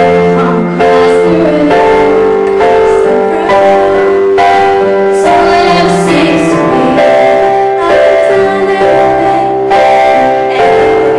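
A female voice singing a musical-theatre song through a microphone, holding long notes over live instrumental accompaniment.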